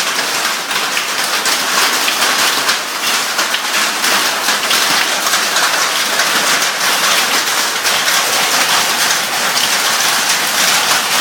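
Heavy rain falling hard and steadily on surfaces, a dense unbroken patter of drops.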